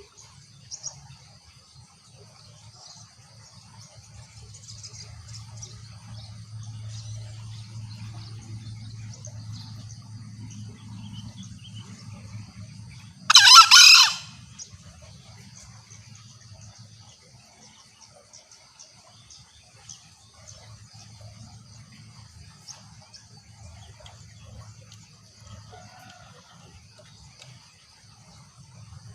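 A green junglefowl crows once, a single loud call lasting about a second midway through, over a steady high-pitched insect chorus.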